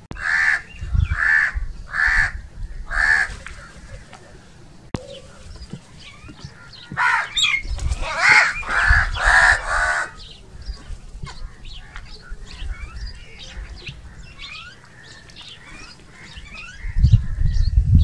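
House crows cawing: four harsh caws about a second apart, then a quicker run of about five caws some seven seconds in. Faint chirps of small birds fill the gaps, and a low rumble comes in near the end.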